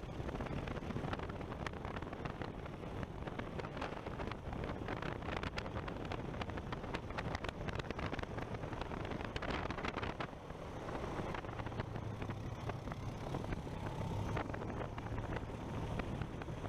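An engine running steadily, a low hum under wind noise on the microphone, with many small rattles and clicks throughout; the hum grows stronger about two-thirds of the way through.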